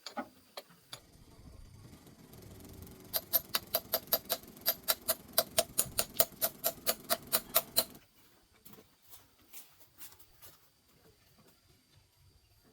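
A mechanical rumble with sharp, evenly spaced clicks about six times a second for roughly five seconds, then it stops abruptly.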